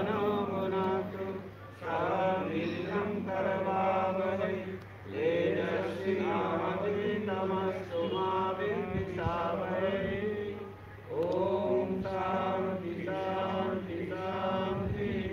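Men's voices chanting a prayer in steady phrases of about three seconds, with a short breath pause between each.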